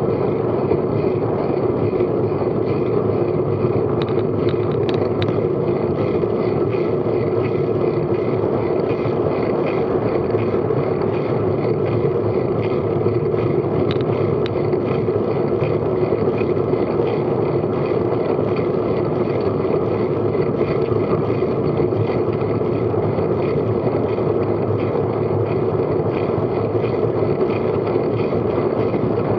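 Steady wind and road noise on a bike-mounted action camera's microphone as a road bike rolls along tarmac at about 14 mph.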